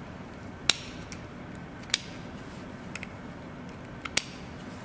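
Small dissecting scissors snipping at the base of a narrow-clawed crayfish's big claw, cutting through the shell at the coxa. Three sharp snips spaced over a few seconds, with a couple of fainter clicks between them.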